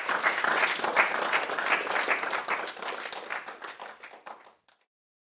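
Small audience applauding with steady clapping that tails off over its last couple of seconds and then cuts off abruptly near the end.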